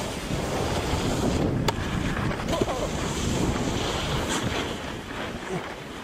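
Wind rushing over the microphone mixed with the hiss and scrape of snowboards sliding over snow, with one sharp click about a second and a half in.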